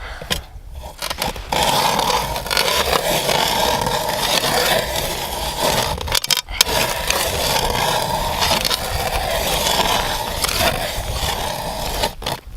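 Hand ice auger boring through thick lake ice: a steady grinding scrape of the blades cutting ice, starting a second and a half in, with one brief pause about six seconds in and stopping just before the end.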